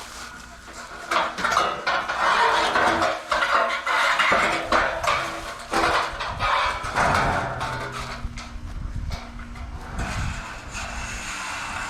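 Scrap metal clanking and clattering in a rapid series of sharp metallic knocks, easing off about six seconds in to a low rumble with lighter rattles.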